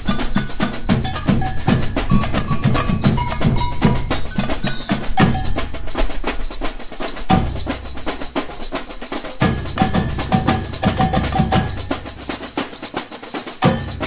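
Brazilian percussion ensemble (bateria) playing a batucada: surdo bass drums, caixa snare drums, tamborins, agogô bells and shaker in a steady interlocking rhythm. The deep bass drums drop out for a few seconds in the middle and again near the end, leaving the bells and higher drums.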